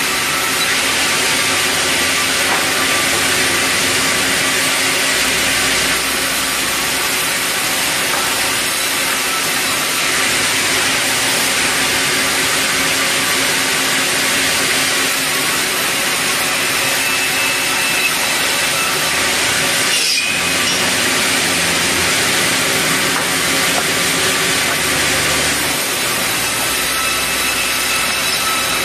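Sawmill band saw resawing red meranti boards, the blade running steadily through the timber with a loud, even noise.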